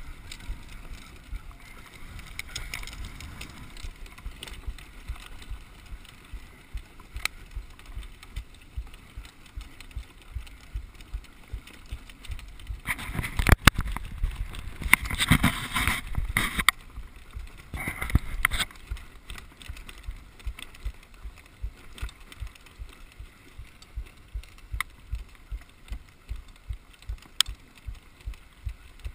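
Dog sled gliding over packed snow: the runners hiss and scrape, the sled rattles, and a regular knocking runs through it. About halfway through there are a few seconds of louder scraping, then a shorter burst a little later.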